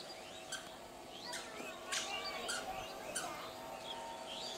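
Birds chirping in short, quick sweeping calls, busiest in the middle, over a faint steady hum.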